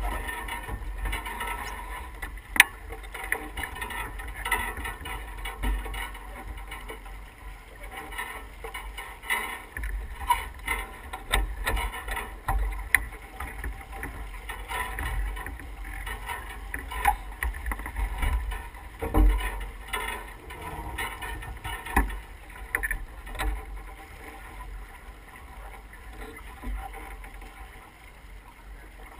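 Water rushing along the hull of an S2 9.1 sailboat under sail, with gusty low rumbles throughout. A single sharp click about two and a half seconds in, and a few duller knocks later, come from gear on deck.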